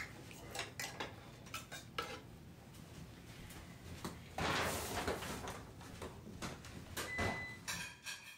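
Kitchen utensils and pans clinking and knocking irregularly, with a louder rushing noise for about a second near the middle.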